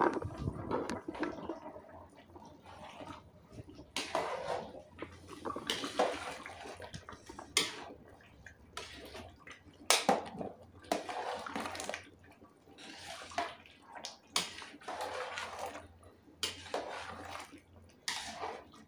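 Chicken biryani rice boiling in water in a large pot while it is stirred with a ladle: irregular wet sloshing and scraping strokes, one every second or two.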